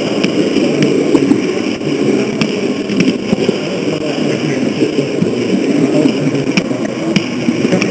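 H0 model train running along the track, heard from a camera riding on it: a steady, rough rumble of motor, gears and wheels on the rails, with a few scattered sharp clicks.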